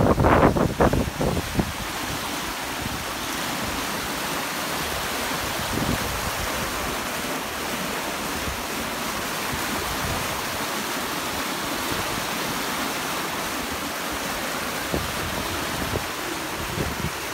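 Wake water rushing and foaming steadily behind a sailing catamaran making about 9 knots under sail. Wind buffets the microphone in the first second or two.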